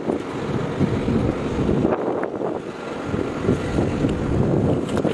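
Wind buffeting the microphone: a gusty low rumble that rises and falls throughout.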